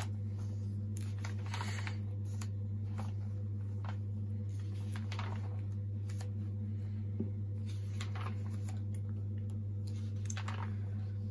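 Glossy paper pages of a Panini sticker album being turned and brushed by hand, with short rustles and soft page flaps every second or so. A steady low hum sits underneath and is the loudest sound.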